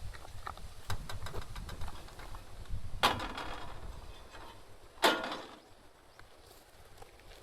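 Two sharp clanks about two seconds apart, each ringing briefly, with scattered small knocks and rustling before them.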